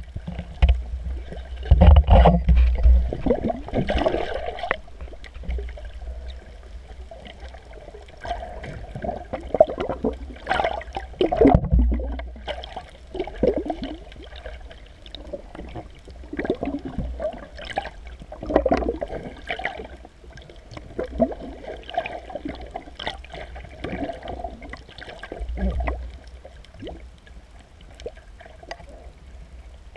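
Muffled underwater water noise picked up by a camera held below the surface: irregular gurgling and sloshing surges with a low rumble as the water moves around the camera.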